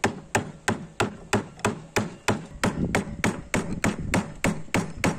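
Hammer blows on the end of a wooden mallet handle, driving it into the mortise of the wooden mallet head: rapid, even knocks, about three a second.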